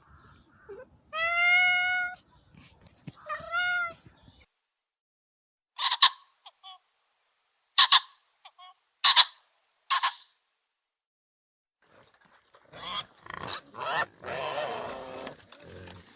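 Animal calls of more than one kind. Two drawn-out pitched calls come in the first few seconds, then a run of short, sharp calls, then a noisier string of calls near the end.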